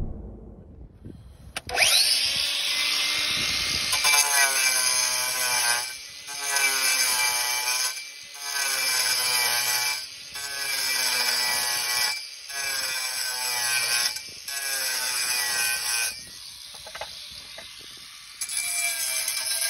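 Angle grinder grinding a recess into a concrete roof tile to clear a solar panel roof anchor. The grinder starts up sharply about two seconds in, then works in repeated passes of about two seconds: its pitch sags as the disc bites and recovers in the short breaks between. It goes quieter for a couple of seconds near the end before grinding again.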